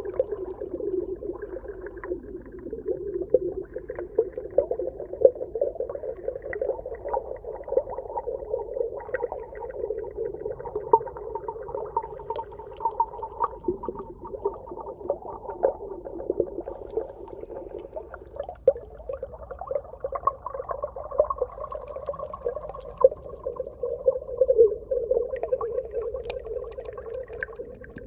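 Underwater ambience: a muffled, steady drone with a higher hum that swells in and out, dotted with fine crackling and clicks.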